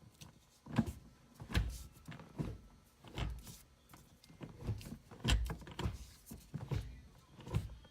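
Manual gear lever of a 2000 Toyota Celica GT-S six-speed, fitted with a TRD quick shifter and a weighted shift knob, being worked through the gates: a series of about nine dull clunks, a little under a second apart.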